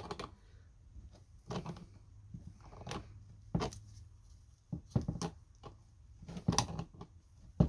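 Scattered short clicks and knocks of a hand tool on metal as a seized stud is worked loose from an e-bike motor's casing, about one every second.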